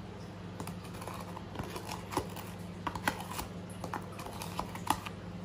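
Light irregular clicks and taps of a spoon and containers handled on a countertop while whipped coffee is spooned out, over a steady low electrical hum.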